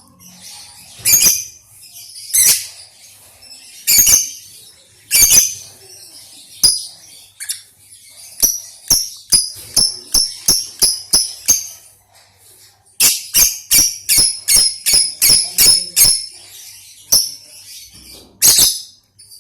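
Lovebird practising its song: sharp, high-pitched chirps, single ones a second or so apart at first, then quick runs of about two a second.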